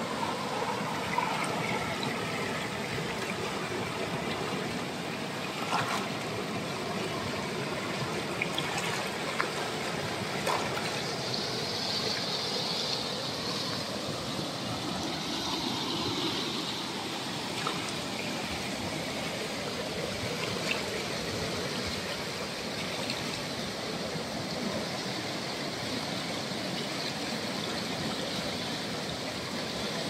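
Fast-flowing river rushing over rocks in whitewater rapids: a steady, unbroken roar of water, with a few short sharp clicks here and there.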